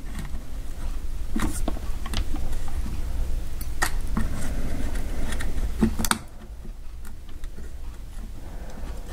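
Small plastic clicks and handling noise as a handheld scanner's circuit board is pried loose from its plastic housing, with a cluster of sharper clicks about six seconds in, after which it goes quieter.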